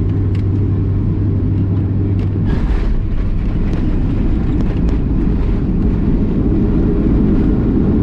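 Boeing 737-800 cabin noise: the steady low rumble of engines and airflow. About two and a half seconds in, a steady hum drops away and the rumble grows gradually louder, with a few faint clicks.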